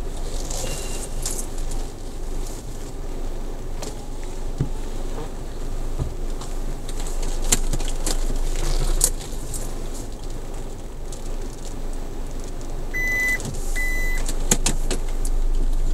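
A car creeping slowly at low speed, heard from inside the cabin: a steady low engine and road rumble with a few sharp clicks and rattles. Two short high beeps sound about 13 seconds in.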